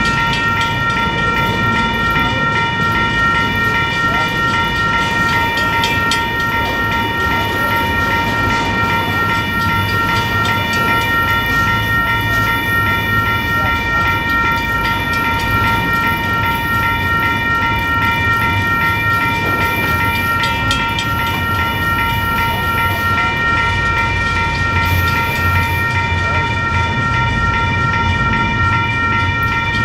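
A slow freight train of autorack and double-stack cars rolling past a grade crossing, with a steady low rumble and an occasional clank from the wheels. Over it the crossing signal's bell rings on and on.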